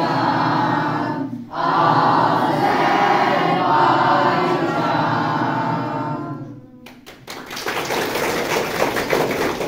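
Children's choir singing together, with a brief break about a second and a half in. The singing ends a little past the middle and clapping follows to the end.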